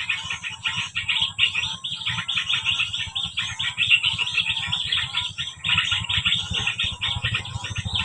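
Small birds chirping in a dense, rapid, non-stop stream of high notes, over a low rumble that grows louder near the end.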